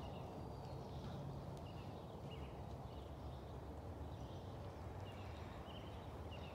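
Muffled hoofbeats of a horse moving on sand arena footing, under a steady low rumble, with a few faint short high chirps.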